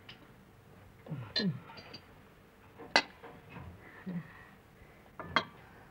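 Plates and cutlery clinking as dishes are handed and served at a dinner table: three short sharp clinks, the loudest about halfway through, with faint scuffs in between.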